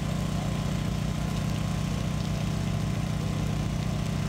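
An engine idling steadily, giving a low, even hum that doesn't change.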